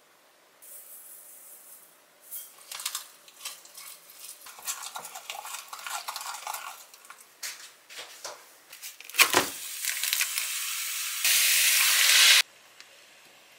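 A wooden spoon stirs thick chili seasoning paste in a glass mug, with small clinks and scrapes against the glass. After a sharp knock of cookware, there is a steady hiss from a pan of sliced pork that grows louder as water is poured in, then cuts off abruptly.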